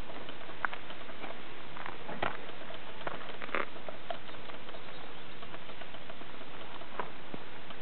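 Faint, scattered soft ticks and patter of puppy paws on bare dirt, over a steady background hiss.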